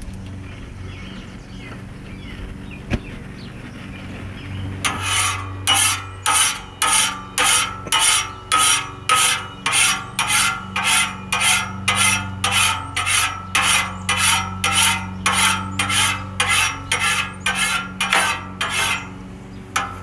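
A metal scraper rasps across the steel top of a gas flat-top griddle in quick, even back-and-forth strokes, about two a second. The strokes start about five seconds in. Before them there is a low hum and a single sharp click.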